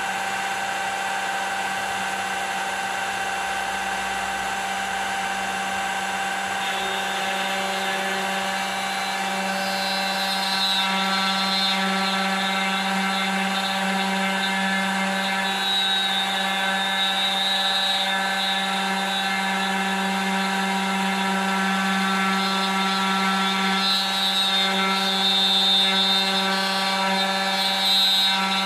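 Spindle motor of a homemade manual copy router running steadily with a whine, its small bit cutting into the workpiece. A harsher cutting sound comes and goes over the whine from about a third of the way in, loudest near the end.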